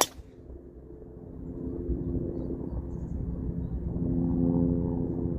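A golf driver strikes the ball with a sharp crack at the very start. It is followed by the steady hum of a motor engine that grows louder from about two seconds in and holds.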